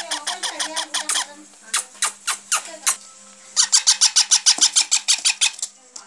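Baby parrots calling, short sharp calls repeated in quick runs. The loudest run comes in the second half, about seven calls a second. The calls are typical of chicks begging for food.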